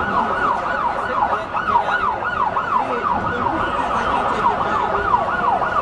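Emergency vehicle siren in a fast yelp, its pitch sweeping up and down about three times a second without a break, over steady street noise.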